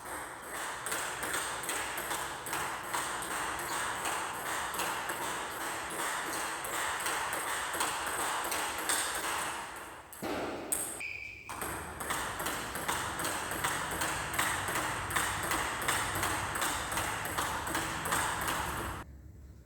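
A rapid, steady stream of light, sharp ball hits and bounces, several a second, as in a racket-sport practice hall. It breaks off briefly a little past halfway and stops just before the end.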